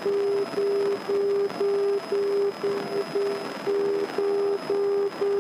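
An electronic beep repeating about twice a second, one steady low-pitched tone, heard through the intercom over the steady cabin noise of a Grumman light aircraft climbing out after takeoff.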